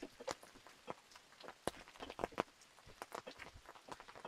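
Footsteps on a wet, muddy path strewn with dead leaves: irregular soft crackles and clicks as people walk, the woman ahead barefoot.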